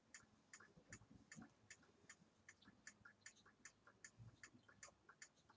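Faint, quick, even ticking of a clock, about five ticks a second, in an otherwise near-silent room.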